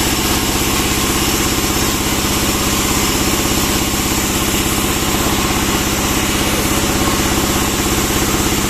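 Sawmill band saw and its drive engine running steadily at idle with a fast, even beat, the blade running free and not cutting.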